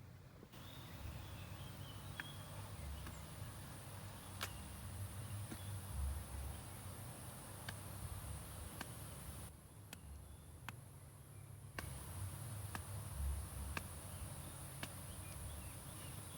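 Steady high-pitched drone of insects, cutting out for about two seconds midway. Scattered sharp clicks and soft low thumps sound over it.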